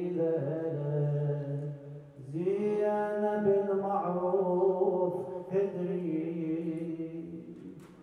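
A man's solo voice chanting a Muharram lament (Arabic rithā' elegy) into a microphone, unaccompanied, in long drawn-out melodic phrases. One phrase ends about two seconds in; after a brief breath a second long phrase runs on and fades away near the end.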